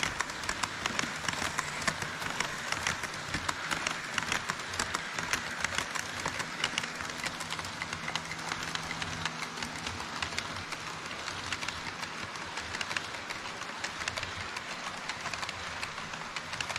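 HO scale model trains running on KATO Unitrack: a steady rolling rattle of metal wheels on the rails with rapid clicks at the rail joints, under a low motor hum that is strongest for the first ten seconds or so.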